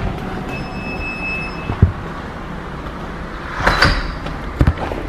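Camera handling noise: the microphone rubs and bumps against clothing, with a steady low rumble and a few thumps. A brief steady high tone sounds about half a second in.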